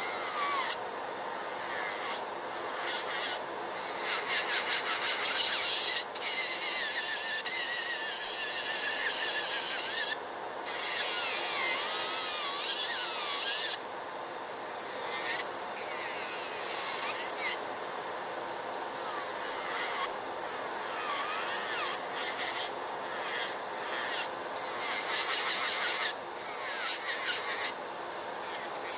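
Electric nail drill with a sanding band bit grinding an acrylic nail in repeated short passes. The grinding hiss starts and stops every second or two, and the motor's whine wavers in pitch. Under it runs a steady hum from the nail dust collector's fan.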